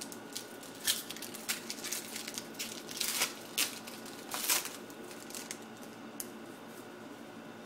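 Foil Yu-Gi-Oh! booster-pack wrapper crinkling and tearing as it is opened by hand: a run of sharp crackles, loudest about three to four and a half seconds in, then fainter rustling as the cards are drawn out.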